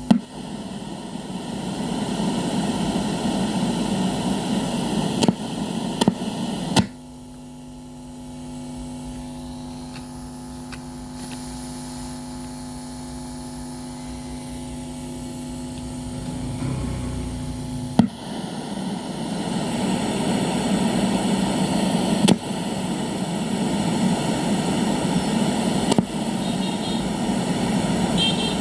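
Sony CFS-1110S radio's speaker playing static hiss with no station coming through, the radio's no-signal fault. Sharp clicks break it now and then, and for about ten seconds in the middle the hiss gives way to a steady electrical hum.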